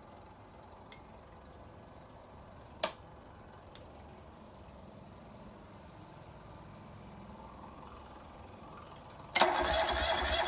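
Electric fuel pump of a rebuilt Fischer Panda 8000i diesel generator running faintly while priming, with a few light ticks and one sharp click about three seconds in. About nine seconds in, the generator's diesel engine is started and becomes loud all at once, with a rapid even beat: the first start after the rebuild.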